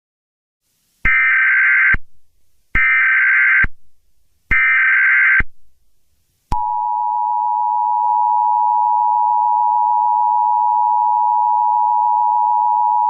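Emergency Alert System header: three short bursts of shrill digital data noise, each just under a second and spaced about 1.7 seconds apart. About halfway through, the EAS two-tone attention signal starts, a loud, steady, harsh beep that holds.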